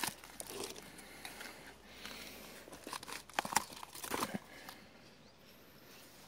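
Faint rustling and crackling of footsteps through grass and forest litter, with a cluster of sharp clicks and crackles between about three and a half and four and a half seconds in.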